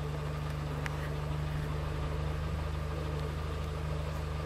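An engine idling: a steady low hum that does not change.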